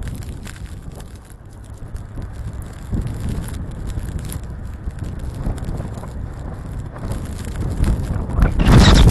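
Strong wind buffeting the microphone in gusts as a low rumble, dipping after about a second and swelling into a loud gust near the end.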